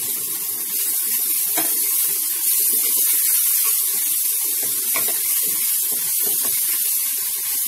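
Minced garlic sizzling in hot olive oil in a nonstick frying pan, a steady high hiss, with a wooden spatula scraping and tapping on the pan as it is stirred.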